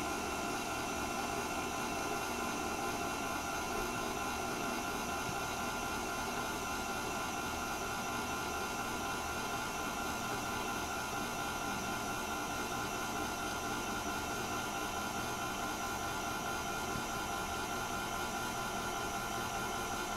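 Electric stand mixer running steadily as it mixes cookie dough, a constant motor whir with several steady tones.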